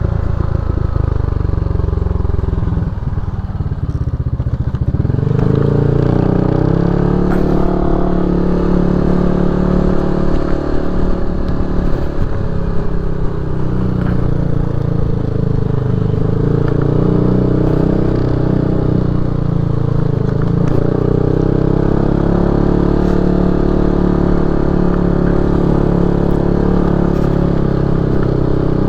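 Motorcycle engine running continuously, its pitch rising and falling as the throttle is opened and eased, with light rattling from the ride.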